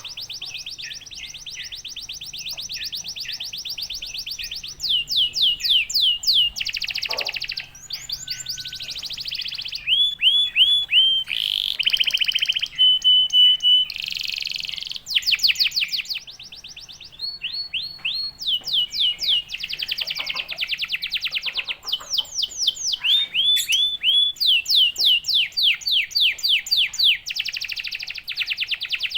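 Domestic canary singing a long, unbroken song of fast trills: runs of rapid, evenly repeated falling notes alternating with short held rolling tours.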